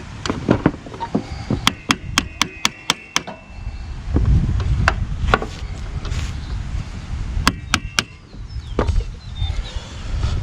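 Metal-on-metal tapping and clinking of hand tools on a zero-turn mower's deck while a discharge chute is being fitted: a quick run of about seven sharp strikes, some ringing briefly, then a few scattered taps and a cluster of three.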